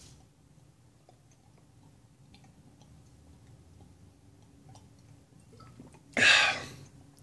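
Person drinking soda from a bottle: faint swallowing and small mouth clicks, then a loud, short, breathy exhale about six seconds in.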